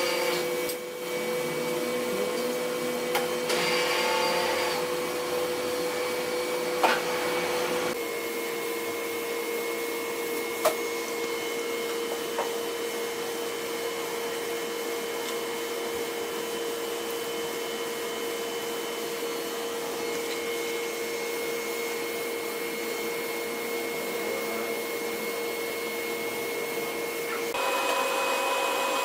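Metal-spray equipment running steadily while it coats the worn bearing seat on a screw compressor's male rotor shaft: a constant hiss with a few fixed humming tones that shift abruptly twice, and an occasional sharp click.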